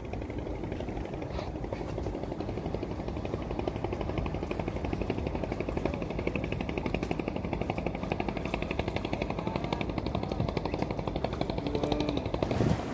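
A boat's engine running with a rapid, even chugging that grows slightly louder.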